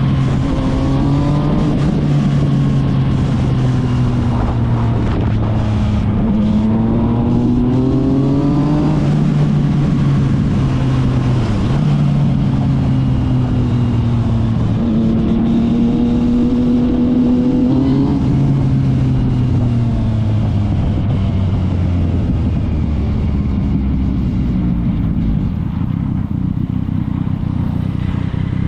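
Yamaha MT-09's inline three-cylinder engine through an Akrapovic exhaust. It rises in pitch under throttle about three times and falls back between them.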